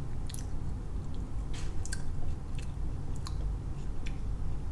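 A person chewing a fresh marigold petal close to the microphone: irregular soft, wet crunching clicks, about six over the few seconds, over a steady low rumble.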